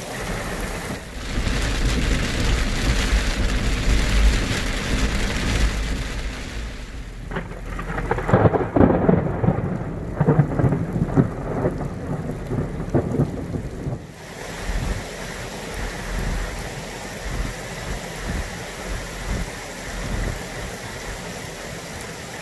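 Heavy rain falling steadily, with a long, loud roll of thunder through the middle that crackles and then fades.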